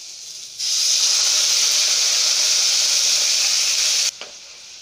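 Water poured into a hot pan of frying spiced potatoes and tomatoes, hissing and sizzling loudly for about three and a half seconds, then stopping abruptly. Faint clicks from stirring follow near the end.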